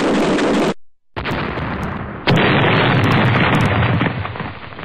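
A dense loud noise cuts off to silence under a second in. Then an explosion sound: a rumbling blast jumps up sharply about two seconds in, holds loud for under two seconds and dies away near the end.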